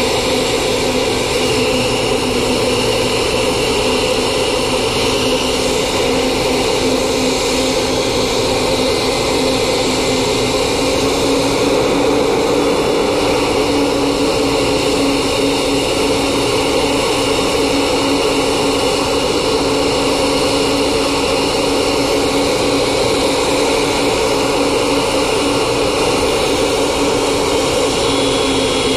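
Boeing 777-200ER turbofan engines running steadily on the ground during an engine run-up: a loud, constant whine over a rushing hiss, the pitch shifting slightly higher about twelve seconds in.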